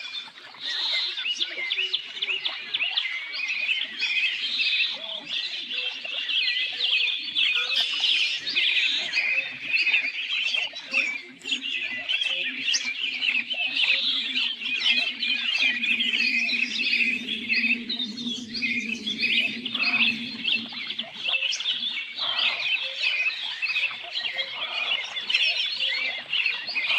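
Several songbirds singing at once, a dense, continuous chorus of rapid chirps and trills. A fainter low steady sound runs underneath for several seconds past the middle.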